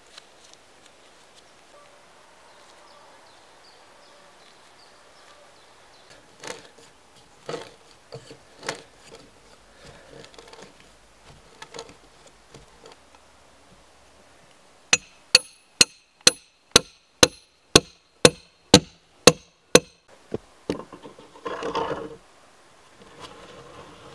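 A hand auger bores into a pine log wall with irregular knocks and creaks. Then a hammer drives a metal axle rod into the log with about eleven sharp, ringing blows, two a second. A short scraping rattle follows.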